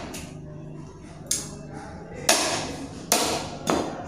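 Goat meat being chopped on a chopping board, four sharp chops at an uneven pace, each with a short ring; the first is lighter and the last three are stronger.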